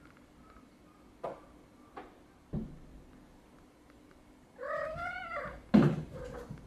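A cat meows once, a drawn-out call that rises and falls over about a second, just before a loud sharp knock. A few softer knocks come earlier.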